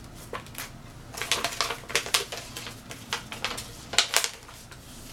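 Packaging crinkling and crackling as it is handled: a paper coupon and a plastic ready-to-heat rice pouch. It comes as irregular sharp crackles, with the loudest clusters about a second in and again about four seconds in.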